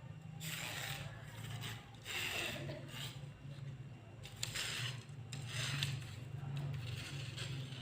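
Telescopic fishing rod being handled: repeated rubbing, scraping strokes of its sections, several of them about a second apart.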